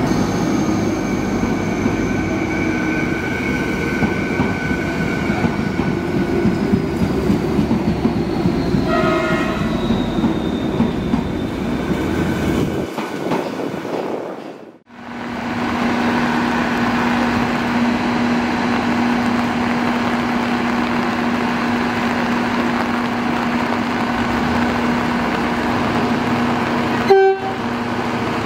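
Slovenian Railways class 610 Stadler FLIRT diesel multiple unit pulling away along the platform with slowly falling machinery tones, and a brief horn sound about nine seconds in. After a cut, a Hitachi Blues hybrid train stands with a steady hum from its running equipment, and a sharp knock near the end.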